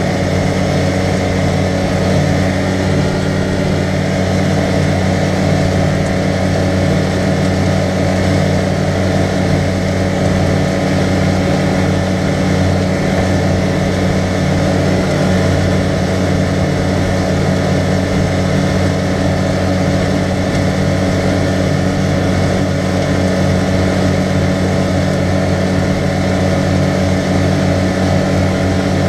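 A 2014 Arctic Cat side-by-side UTV's engine running at a steady cruising speed, its pitch holding constant.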